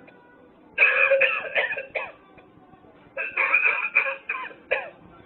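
Lung-shaped novelty coughing ashtray playing its recorded coughing: two bouts of several quick coughs each, the first about a second in and the second after about three seconds.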